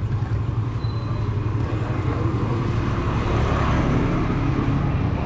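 An engine running steadily: an even low rumble with a fast pulse.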